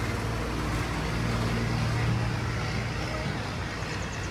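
A steady low engine hum over even outdoor background noise, cutting in and out abruptly.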